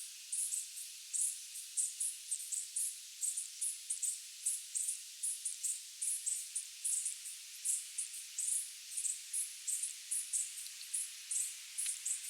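Night insects calling in a steady rhythm of short, high-pitched chirping pulses, about three or four a second, some coming in pairs, over a faint high hiss.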